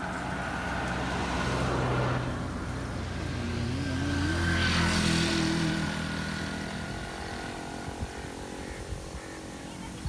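Road traffic passing: a small 4x4 jeep drives by, loudest about two seconds in, then a motorcycle passes with a wavering engine note, loudest around five seconds in, and fades away.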